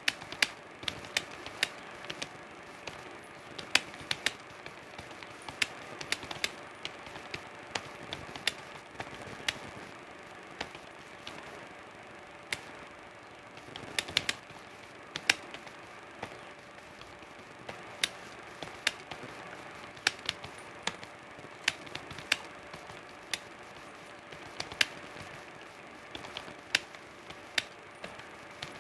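Typing on a computer keyboard: an uneven run of sharp key clicks, a few a second, with short pauses, over a faint steady hum.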